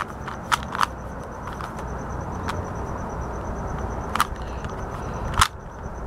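Plastic Rubik's Cube being turned by hand through a second-layer edge-insertion algorithm: about half a dozen sharp clicks as the layers snap round, spaced unevenly, one of the loudest near the end.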